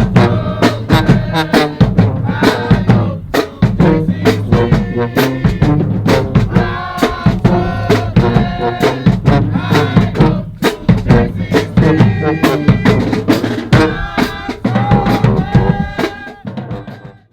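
HBCU marching band playing: brass over a drumline, with frequent sharp drum hits and a heavy bass drum. The music fades out near the end.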